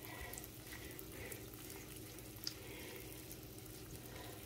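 Faint, steady sizzling of sliced peppers frying in an oil and butter mixture in a pan, with a light tap about two and a half seconds in.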